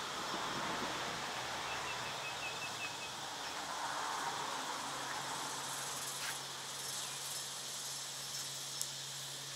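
Outdoor ambience: a steady hiss with a low hum underneath, and a quick run of about six high chirps around two seconds in.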